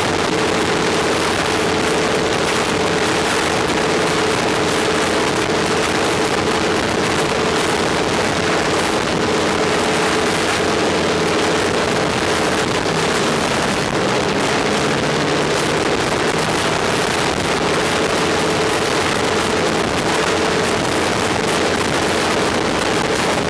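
Il-14T's left engine, a Shvetsov ASh-82T fourteen-cylinder radial, running steadily on the ground: a loud, even drone with a steady hum that wavers briefly about halfway through.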